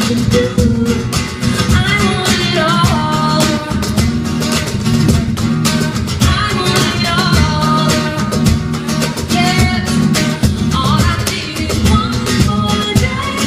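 Live acoustic pop song: guitar strummed steadily under a voice singing the melody.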